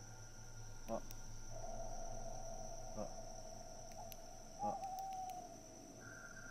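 Night insects, crickets, trilling steadily and high-pitched. A lower steady tone joins in through the middle, and a few faint short clicks fall about a second, three seconds and just under five seconds in.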